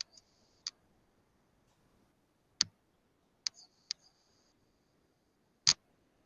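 About six sharp, isolated clicks over a quiet background, the loudest two about two and a half and five and a half seconds in; several are followed by a brief, faint high-pitched hiss.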